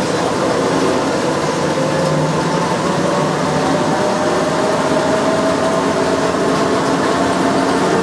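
Driverless airport shuttle train running on rubber tyres along a concrete guideway, heard from inside the car: a steady rolling rumble with a motor whine that slowly rises in pitch as it gathers speed.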